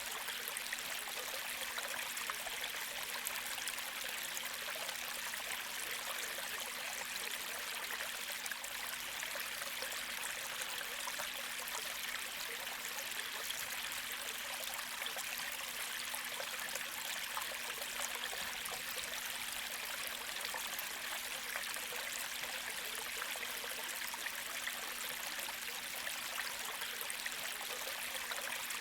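A gentle creek flowing and trickling over stones in a steady wash of water, with a faint low hum underneath.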